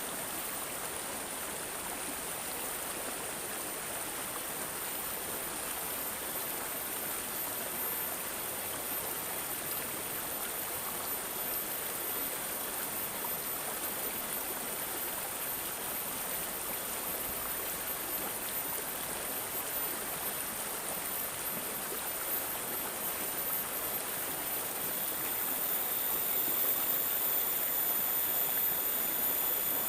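A small stream of water gurgling and trickling steadily, a little louder in the last few seconds.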